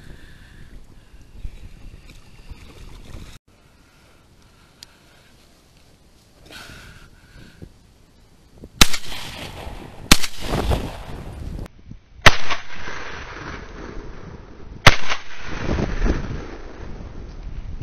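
Four shotgun shots over about six seconds: two a second and a half apart, then two more about two and three seconds after that.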